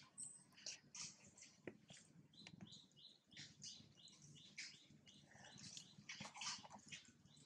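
Faint, quick series of short high chirping calls, about three a second, a little louder and denser near the end.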